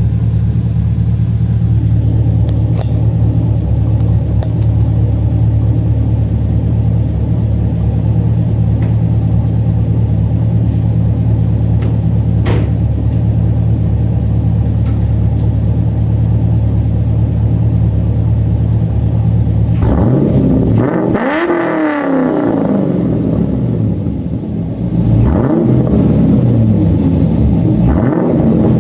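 2010 Chevrolet Camaro SS V8 running through an SLP full 3-inch exhaust with long-tube headers and a Loud Mouth kit. It idles steadily for about twenty seconds, then is revved several times, the pitch climbing and falling with each blip.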